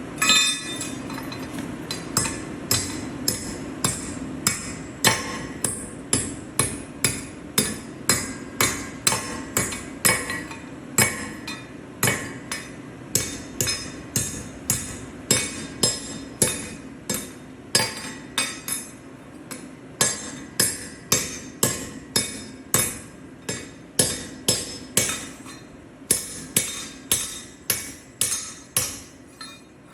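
Drawn arc stud welder firing weld after weld, each weld a sharp crack that dies away quickly, about one and a half to two a second, over a steady low hum.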